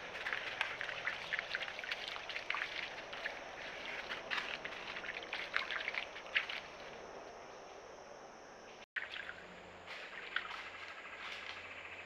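White-tailed deer walking over dry leaf litter and sand: a run of light, crisp crunching steps that fades out after about six seconds. Quieter outdoor ambience follows.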